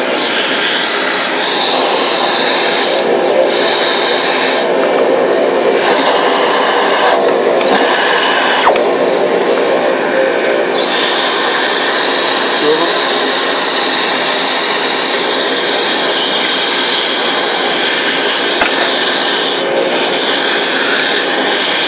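Harbor Freight dust collector running steadily, pulling suction through the CNC router's dust boot. Its airy hiss shifts in tone several times over the first ten seconds or so, then stays even.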